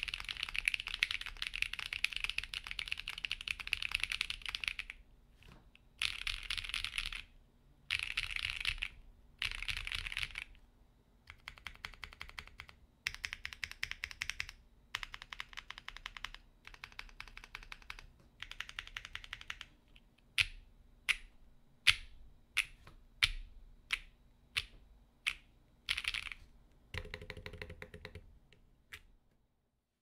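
Typing on a Sneakbox AVA mechanical keyboard with lubed, filmed Tecsee Neapolitan tactile switches on a POM plate, with Drop DCX keycaps. A fast steady run of keystrokes gives way to shorter bursts of typing with pauses. Then come single key presses about two-thirds of a second apart, and a final deeper-sounding burst near the end.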